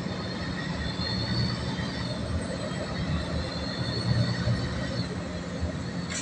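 Steady running noise of a bus heard from inside its cabin: a low engine and road rumble, tyre hiss from the wet road, and a faint high whine that wavers slowly above it.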